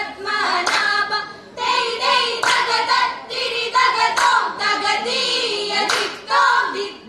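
Group of female voices singing Vanchippattu, the Kerala boat song, in the Aranmula style, clapping their hands sharply on the beat.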